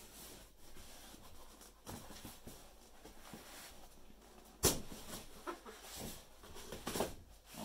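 Packaging being handled: rustling and light scraping, with one sharp click or snap about two-thirds of the way through and a few smaller knocks near the end.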